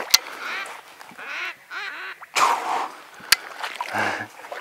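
Ducks quacking in a run of short calls. Two sharp cracks sound about three seconds apart, the first the loudest sound of all.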